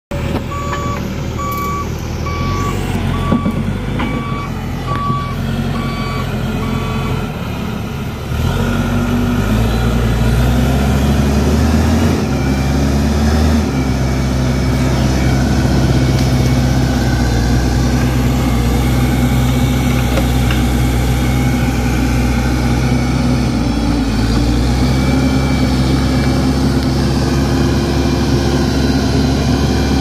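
Case backhoe loader's diesel engine running, with its reversing alarm beeping steadily for the first several seconds. About eight seconds in the engine speeds up and keeps running hard and steady.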